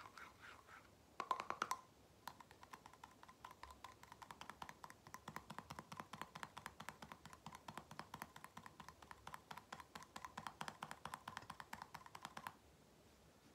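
Fast fingernail tapping on the aluminium screw-top lid of a small glass jar: a rapid, steady run of light clicks with a short metallic ring. A louder flurry comes about a second in, and the tapping stops abruptly about a second before the end.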